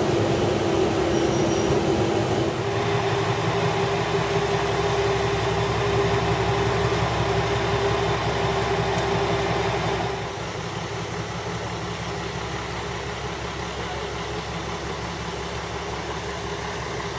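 Diesel railcar running with a steady engine hum and rail noise. About ten seconds in the sound drops to a quieter, steady level.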